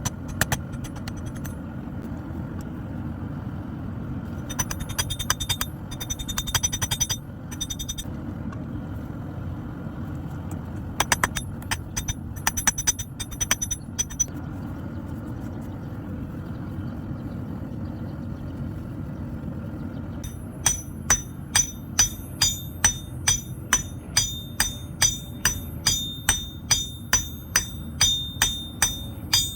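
Hammer blows on an anvil while forging a steel bodkin arrow point, each strike ringing brightly. Two scattered runs of quick, lighter taps come first, then, about two-thirds of the way in, a steady beat of about two strikes a second. A steady low rumble continues underneath.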